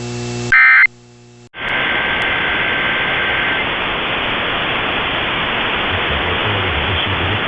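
AM radio receiver audio: a low electrical hum, then about half a second in a brief, loud burst of EAS digital data tones, a short drop-out, and from about a second and a half in a steady hiss of AM radio static.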